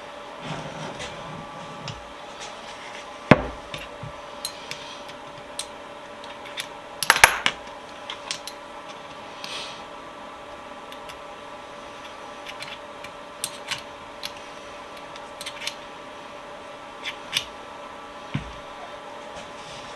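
Metal parts of a bench vise clinking and knocking as it is handled and fitted together during reassembly: a sharp knock about three seconds in, a cluster of rattling knocks around seven seconds, and scattered light clicks after. A steady hum runs underneath.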